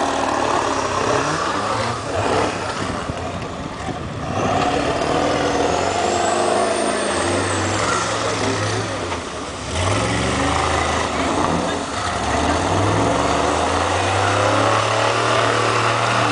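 Pickup truck engines revving hard and repeatedly as the trucks churn through deep slush and mud, the pitch rising and falling with the throttle.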